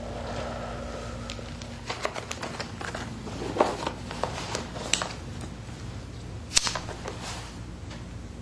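Handling noise: rustling with a series of light clicks, two of them sharper than the rest, over a faint steady hum.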